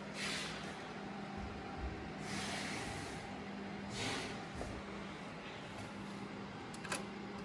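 Steady hum of a running HPE ProLiant ML350p Gen8 server, with a constant low tone. Three short breathy hisses close to the microphone come about two seconds apart.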